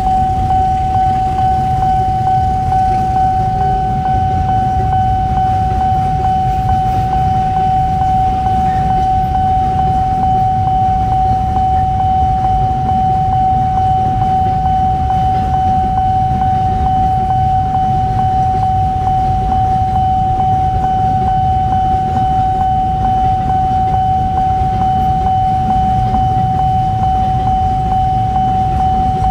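Railway level-crossing alarm sounding one steady tone without a break, over the low rumble of a container freight train's wagons rolling past.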